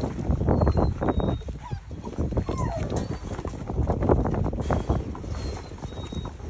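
Six-week-old pointer puppies playing and scuffling on a wooden deck: dense patter and scrabble of paws and claws on the boards, with a couple of short puppy whines.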